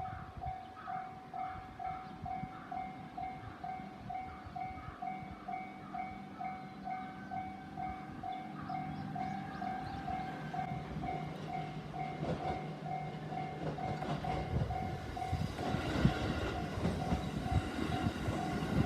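A Japanese level-crossing warning bell rings throughout in a steady, rapid, evenly repeating ding. A train's running noise comes in about halfway through and grows into the louder rumble and rattle of the train passing in the last few seconds.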